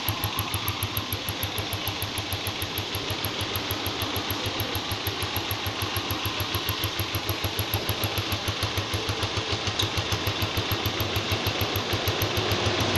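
Four-stroke motorcycle engine idling at the muffler, its exhaust pulsing evenly at about six or seven beats a second, with a wire-mesh insert in the muffler outlet meant to make it whistle. It grows slightly louder near the end.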